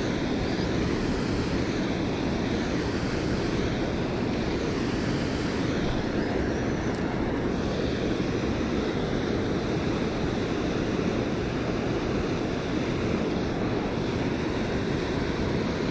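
Steady rush of moving water, unbroken and even.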